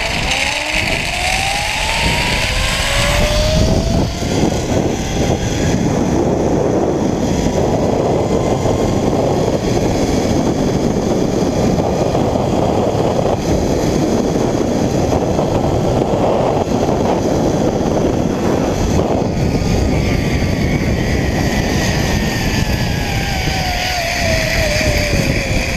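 Zipline trolley's pulley wheels running along the steel cable: a whine that rises in pitch over the first few seconds as the rider picks up speed and falls near the end as the rider slows, under loud rushing wind on the microphone.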